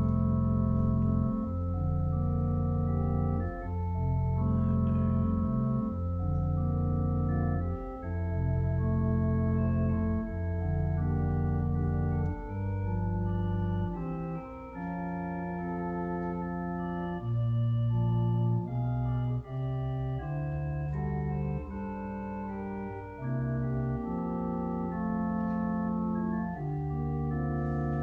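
Organ playing a slow passage of held chords over sustained bass notes, the harmony shifting every second or two.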